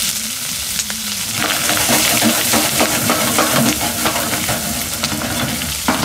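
Green peppers frying in a hot pan, sizzling steadily with many small crackles. The sizzle grows fuller and louder about a second and a half in.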